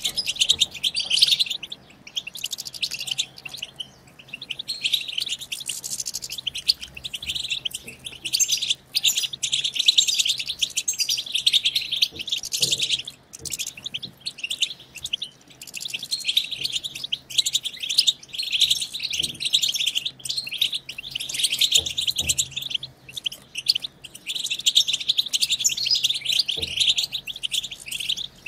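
European goldfinch twittering: a fast, unbroken stream of high chirps and trills, broken by short pauses every few seconds.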